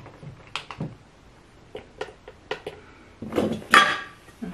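Clicks and clinks of small hard objects being handled and knocked together, a string of separate sharp taps with a louder clatter about three and a half seconds in.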